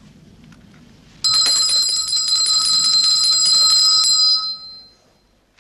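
A small hand bell rung rapidly, starting suddenly about a second in, shaken for about three seconds and then ringing out and fading: a call for the servants to serve supper.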